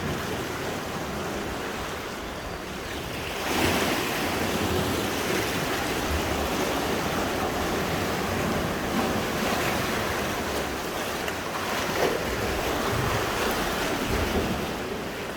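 Sea waves washing on the shore: a steady rushing that surges louder about three and a half seconds in and stays full, with a few smaller swells later.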